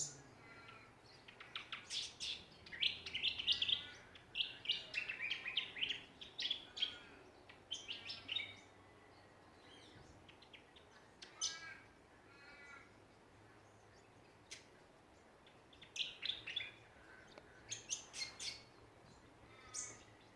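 Songbirds chirping and calling in quick, overlapping bursts of short high notes and trills, busiest in the first half, thinning out in the middle and picking up again near the end.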